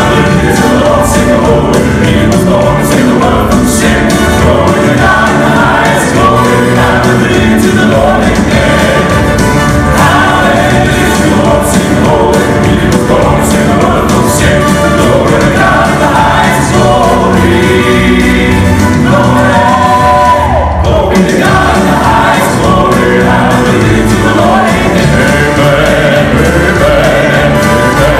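Male gospel quartet singing in close harmony into microphones, with a live band accompanying.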